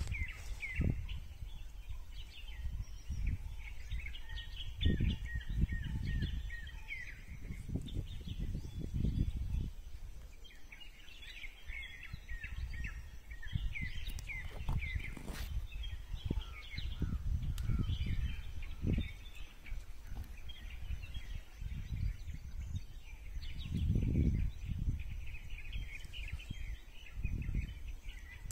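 Small birds chirping over and over in a rural outdoor setting, with intermittent low rumbling surges that come and go throughout.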